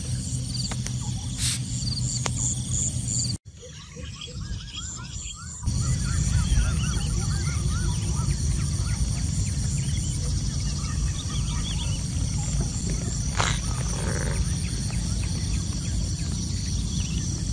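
Small birds chirping in short, rising and falling notes over a steady high insect trill, with a low rumble underneath; the whole ambience drops away for about two seconds a few seconds in.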